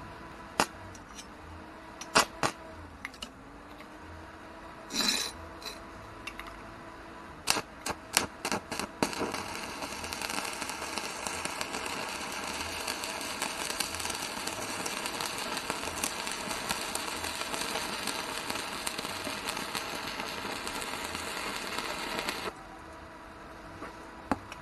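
Stick (MMA) welding arc from a repaired Telwin inverter welder at 60 amps. A few short crackles as the arc is struck, then a steady crackling, hissing arc burning for about 13 seconds that cuts off suddenly near the end. The repaired inverter holds a stable arc.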